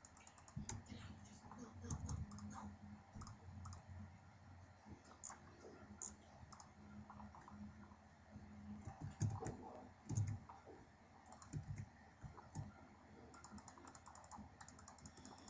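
Faint, irregular clicking of a computer mouse and keyboard, the quick clicks of selecting points one by one. A few louder low thumps come about two-thirds of the way through.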